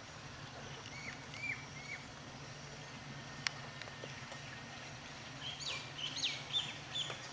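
Birds chirping: three short calls about a second in and a quicker run of chirps near the end. Under them runs a low steady hum from the engine of a slowly approaching diesel shunting locomotive. A single sharp click comes about halfway through.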